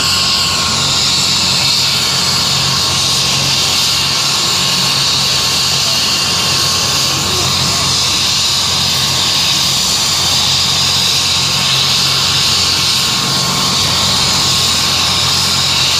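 AgustaWestland AW109 twin-turbine helicopter running on the ground with its rotor turning: a steady high turbine whine over a low, even rotor and gearbox hum.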